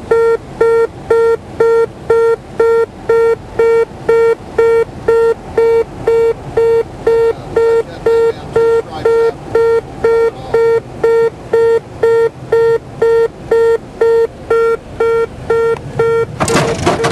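Light aircraft's landing-gear warning horn beeping steadily, about two beeps a second: the sign that the gear is still up as the plane comes in to land. Near the end a sudden loud rough noise sets in under the beeping.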